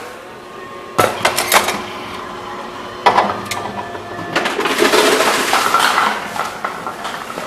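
Envipco CF-1500 reverse vending machine at work: several sharp knocks as containers are handled and go into the intake, then about two seconds of the machine's mechanism running with a rattling whir.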